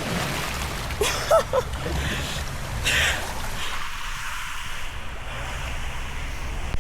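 Water rushing and splashing around a rider going down a waterslide, with wind buffeting the microphone. Two louder splashes come about a second in and about three seconds in, and the rider lets out a brief exclamation about a second in.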